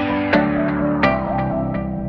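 Background music: plucked guitar-like notes over a steady sustained backing, a new note struck about every half to three-quarters of a second.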